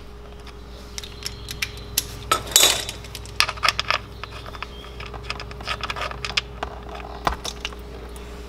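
Ratchet with a T45 Torx bit clicking and clinking in quick irregular strokes as the oil drain plug is unscrewed from the oil pan, with a brief scrape about two and a half seconds in, over a steady low hum.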